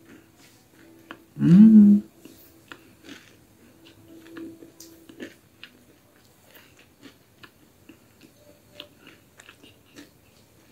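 A person chewing and biting into crisp baked pastry, with many small clicks and crunches, and one short, loud voiced sound rising in pitch about a second and a half in.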